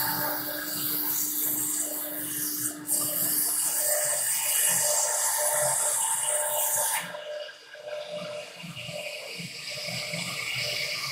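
CNC router spindle cutting acrylic sheet: a loud, steady, high hiss of the bit milling the plastic. About seven seconds in the hiss drops away sharply, and the machine runs on more quietly.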